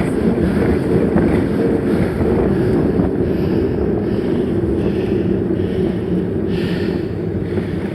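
Loud, steady wind buffeting the microphone while a mountain bike is being ridden, a low rumbling rush with no clear tones.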